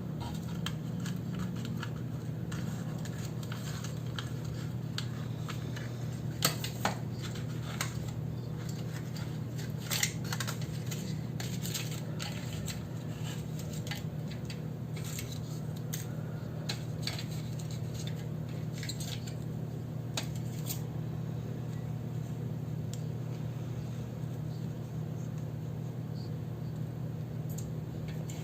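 Scissors snipping paper and small clicks of desk handling, scattered and irregular, the sharpest a few seconds in and again about ten seconds in, over a steady low hum.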